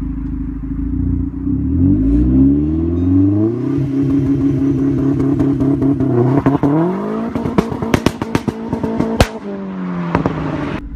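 Vauxhall VXR's turbocharged four-cylinder engine revving through a decat exhaust with no silencer. The revs rise and are held steady, rise again, then a rapid run of loud bangs and crackles comes about eight seconds in, the popping of its mapped launch control and ignition cut. The revs fall near the end.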